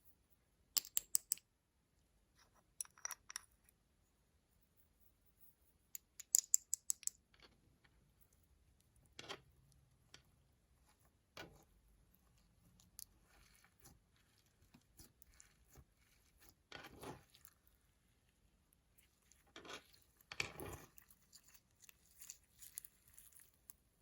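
Slime being pressed and mixed by hand, giving bursts of quick sharp clicks and pops, then softer crackling and squishing.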